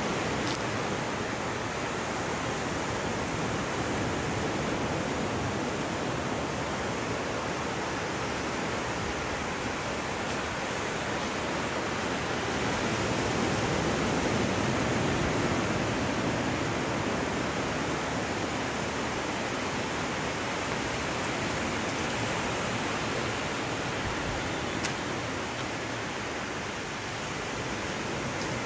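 Surf washing onto a sandy beach: a steady rush of noise that swells a little about halfway through, with a faint tick near the end.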